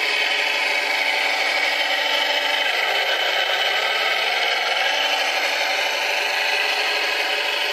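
Small electric drive motors and gearing of a radio-controlled scale Cat 966 wheel loader whirring steadily as it drives. The whir's pitch dips and comes back up around the middle.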